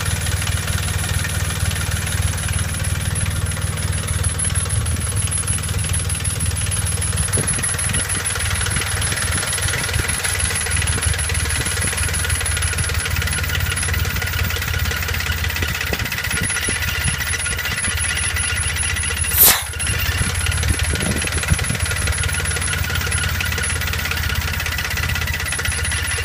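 Dauntless V6 engine idling steadily with a low, pulsing rumble. Its PCV valve is disconnected from the carburettor, and the owner suspects an internal vacuum leak. A single sharp bang stands out about three-quarters of the way through.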